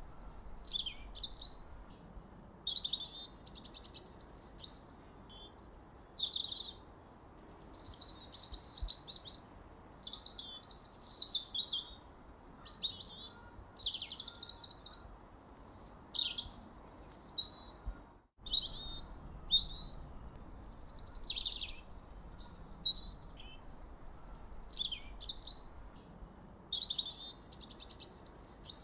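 Songbirds chirping and singing: a busy stream of short, high, quickly rising and falling calls and trills, one after another, over a faint steady background hiss. There is a split-second gap of silence about two-thirds of the way through.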